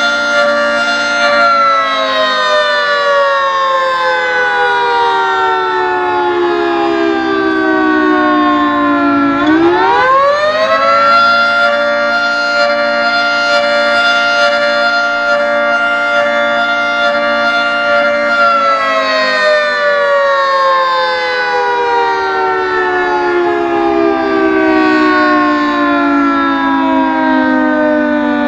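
Federal Signal 3T22 electromechanical fire siren sounding a wail. A held high tone slowly winds down over about eight seconds, winds quickly back up about nine seconds in, and holds steady for about seven seconds. It then begins a slow wind-down again.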